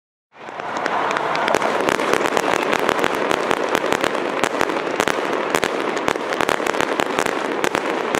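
Fireworks crackling: a dense, steady run of many small sharp pops, starting abruptly a moment in, with no big booms.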